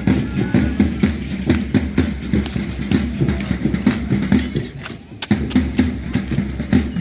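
Rapid rhythmic stamping of a matachines dance troupe's feet, many dancers striking the ground together, with a brief lull about five seconds in.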